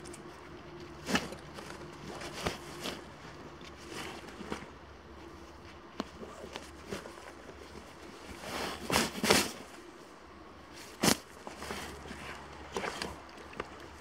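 Irregular footsteps and rustling crunches in dry autumn forest litter, with a louder cluster of crunches about nine seconds in and a sharp crack about eleven seconds in.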